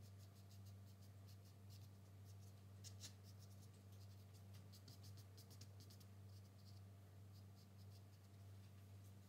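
Stick of drawing charcoal scratching over paper in many short, quick shading strokes, faint, with the strongest strokes about three seconds in. A steady low electrical hum runs underneath.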